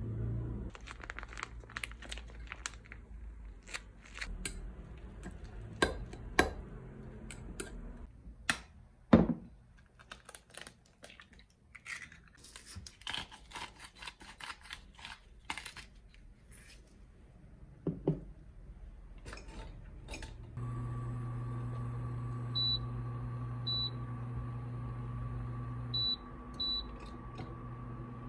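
Kitchen prep sounds: a metal spoon clinking and tapping against a glass jug and bowl while ingredients are mixed and eggs are beaten. About twenty seconds in, a steady electric hum from the cooktop starts, with four short high beeps from its controls.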